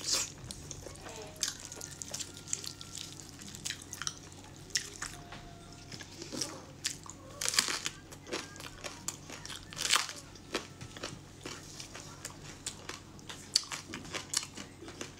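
Close-up chewing and wet lip-smacking of someone eating braised pig trotters, an irregular run of sticky mouth clicks with a few louder smacks, along with the soft tearing of the meat by gloved hands.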